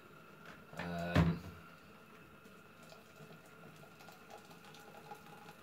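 Water pouring faintly and steadily from an electric kettle, with a brief burst of a man's voice about a second in.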